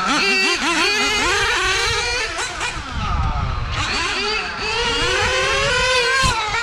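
1/8-scale nitro GT RC cars' small two-stroke nitro engines revving hard, more than one engine heard at once. Their pitch falls and rises again as the cars lift off and get back on the throttle through the corners.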